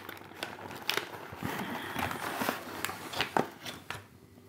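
Cardboard box and clear plastic pastry tray rustling and crinkling, with irregular small clicks, as the tray is slid out of the box. It quietens near the end.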